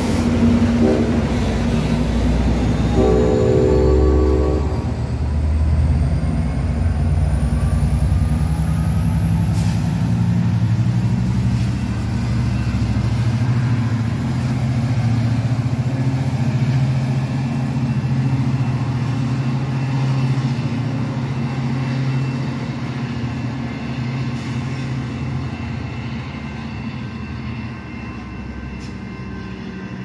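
Diesel passenger train running past at a station, its engine rumbling, with a short train horn blast about three seconds in. A thin whine slowly rises in pitch, and the rumble fades toward the end.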